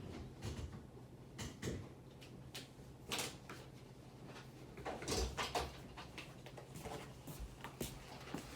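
Irregular soft knocks and clicks, a few close together about three and five seconds in, over a low steady hum.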